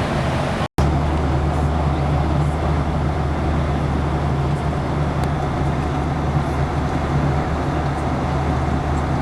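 Steady cabin drone of a Boeing 737-800 in flight: engine and airflow noise with a low hum. The sound cuts out completely for a moment under a second in.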